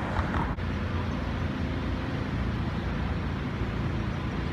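Steady outdoor urban background noise: an even, low rumble with no distinct events. It dips briefly about half a second in, where the recording cuts.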